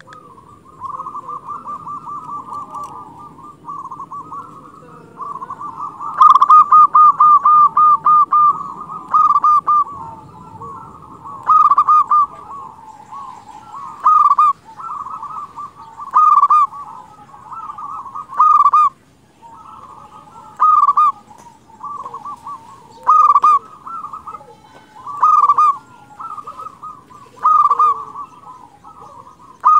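Local zebra dove (perkutut) cooing. For the first ten seconds or so it gives long, rapid rolling runs of notes, then settles into a steady series of phrases, each with a louder note, about every two seconds.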